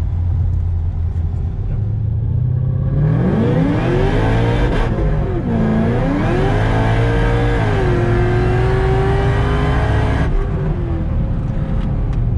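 Supercharged 6.2 L V8 of a 2013 Cadillac CTS-V accelerating hard from about three seconds in: the engine note rises, drops at a gear change, climbs again, holds steady for a couple of seconds, then falls away as the throttle is lifted.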